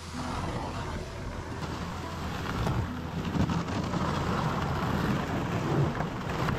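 Canoe hull sliding and scraping over snow and through brush as it is towed: a steady rough hiss that grows louder in the second half, with a few louder bumps.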